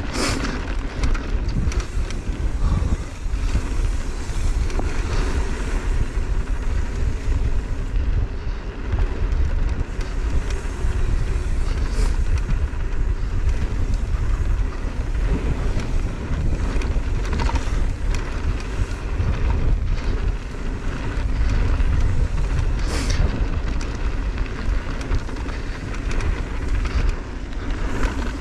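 Downhill mountain bike riding fast down a dirt trail: a steady rumble of tyres over dirt and roots, wind rushing over the GoPro's microphone, and the bike rattling, with a couple of sharp clacks from hits on the trail.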